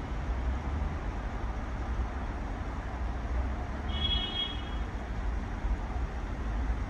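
Steady low rumble and hiss of distant road traffic. About four seconds in, a brief high-pitched tone sounds for under a second.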